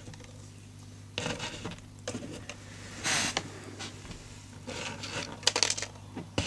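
Loose beads being picked out and pushed around on the bottom of a cardboard box by hand: scattered light rattles and scrapes, over a steady low hum.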